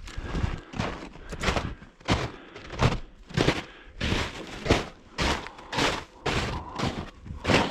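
Footsteps at a steady walking pace, about one and a half steps a second.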